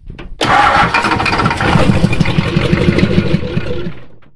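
Freshly rebuilt 1988 Ford 7.3 IDI V8 diesel firing on ether with no exhaust system fitted. It catches suddenly about half a second in and runs loud and a little clunky for about three seconds, then dies away near the end.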